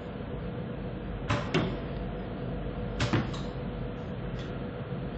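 Steady hum of a hand-held hot-air tool's blower running. Over it come pairs of sharp clicks, about every second and a half.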